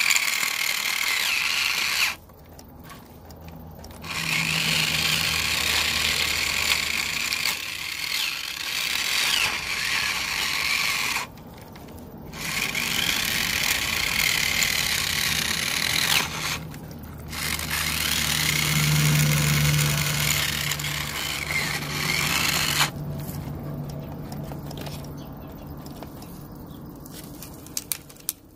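Electric RC car motor whining as it is driven hard, its pitch rising and falling with the throttle and the noise of the wheels spinning in dirt. It stops briefly a few times and then starts again.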